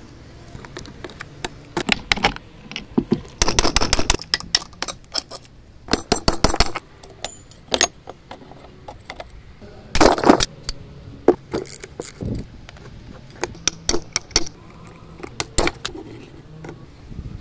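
Metal parts of a 1960s Vespa scooter engine, its gears and clutch, clinking and clattering as they are handled and pulled apart by hand, in irregular clusters of sharp knocks; the loudest clatter comes about ten seconds in.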